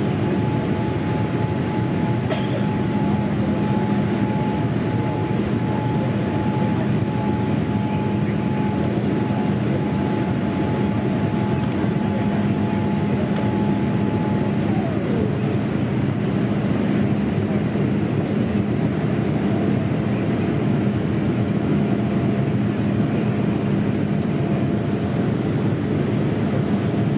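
Cabin noise inside a Boeing 787-8 during the climb after takeoff: a steady rush of engine and airflow with a low hum. A thin whine holds level, then drops in pitch about halfway through.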